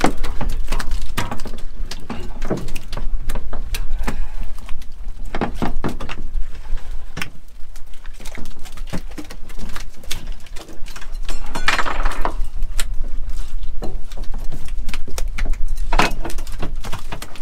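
Working deck noise on a cod jigging boat: irregular knocks, clicks and thumps of fish and gear on the aluminium deck, bins and rail, over a steady low rumble of engine and wind. A louder drawn-out sound comes a little past the middle.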